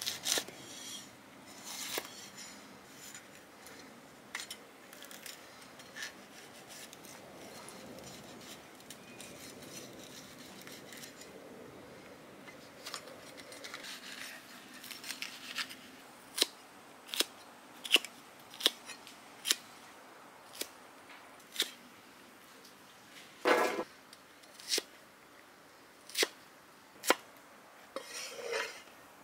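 Cleaver chopping green bell pepper and shallots on a wooden chopping block: scattered knife knocks at first, then a run of sharp chops about one a second over the second half.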